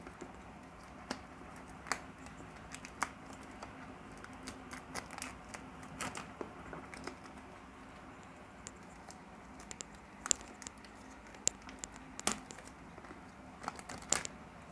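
Thin clear plastic wrap being handled and peeled off a cardboard box, crinkling and crackling in irregular snaps.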